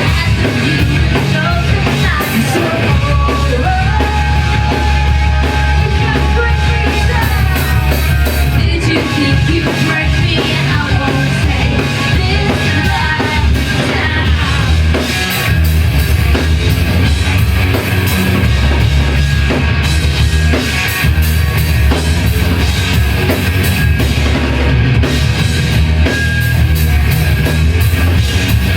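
Live rock band playing loud, with drum kit, bass and distorted guitars, and some singing.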